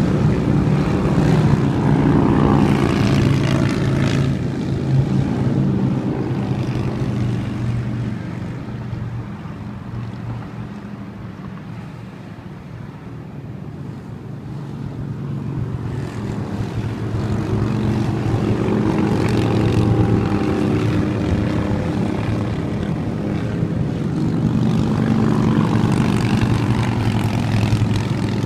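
A group of motorcycles riding past on the road below, their engines running together in a steady low hum. The sound fades somewhat around the middle and builds up again in the second half.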